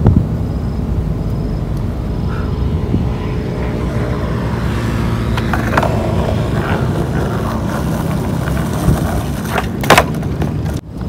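Skateboard wheels rolling on rough concrete: a steady low rumble, with light clicks midway and a sharp clack of the board about ten seconds in as the rider does a trick.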